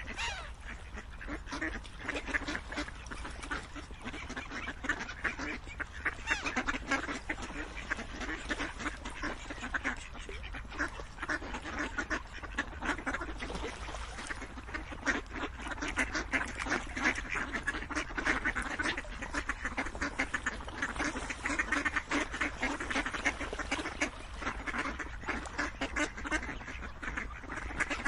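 A flock of ducks quacking without a break, many short calls overlapping one another.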